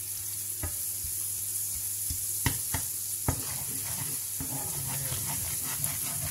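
Butter sizzling as it melts into hot caramel in a frying pan, stirred with a metal spoon that knocks sharply against the pan a few times.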